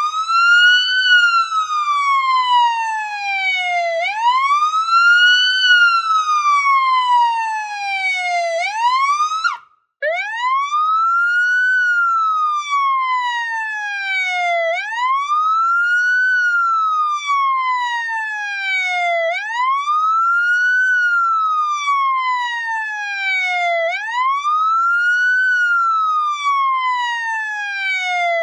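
Police siren wailing: the pitch rises quickly and falls slowly, repeating about every four and a half seconds. A brief gap comes about ten seconds in, and after it the siren continues more cleanly.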